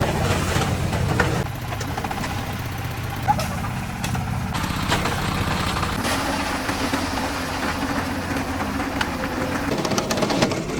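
Engine of a concrete mixer running steadily. The sound changes abruptly about 1.5 and 4.5 seconds in.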